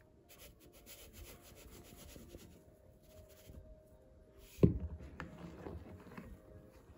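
Sifted cake flour and sugar sliding out of a plastic bowl onto whipped egg whites with a faint rustle. A single sharp knock comes about two-thirds of the way in, followed by light scraping in the mixing bowl.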